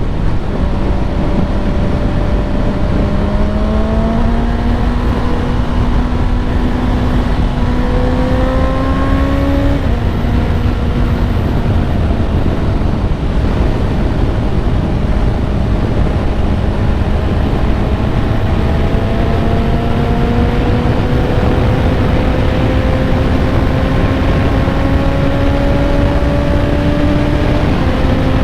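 Honda CBR650R's inline-four with an Akrapovic exhaust and DB Killer fitted, pulling steadily with its pitch climbing slowly. The pitch drops on an upshift about ten seconds in and again near the end. It is heard through a helmet microphone under heavy wind noise.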